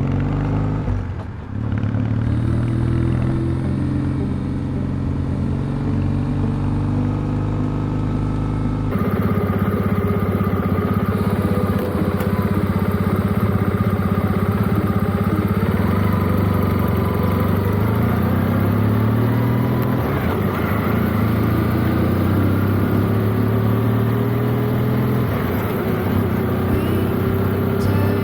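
Motorcycle engine running steadily while riding, its pitch holding at even speeds and slowly rising near the end as it speeds up.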